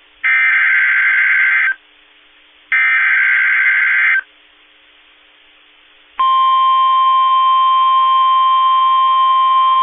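Emergency Alert System SAME header: two buzzy digital data bursts of about a second and a half each, with a low hiss between them. About six seconds in, a loud, steady single alert tone near 1 kHz starts: the weather radio warning alarm tone that announces a new warning.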